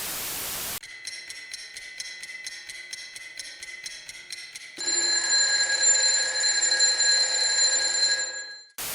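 Short bursts of radio static frame an electronic ringing sounder. The sounder opens with a fast repeating ringing pattern for about four seconds, then switches to a louder steady ringing chord that stops just before the static returns.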